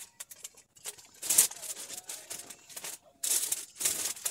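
Short bursts of rustling and crinkling as things are handled, about a second in and twice more near the end.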